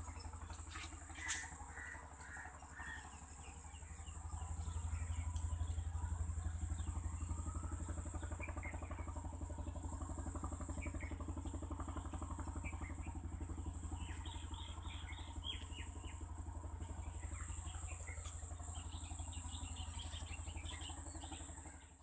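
Small birds chirping in short high notes, scattered and in little bursts near the middle and near the end, over a steady low rumble like a nearby engine running, with a steady high hiss and one sharp click about a second in.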